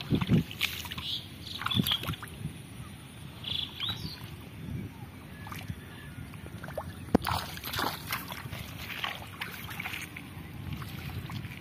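Hands groping through shallow muddy water, with irregular sloshing and small splashes.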